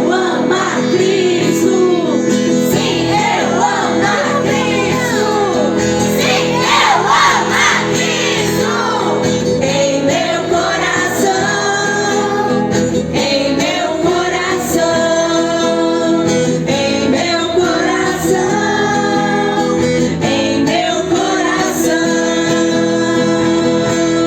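A children's praise song: voices singing over instrumental accompaniment with a steady beat.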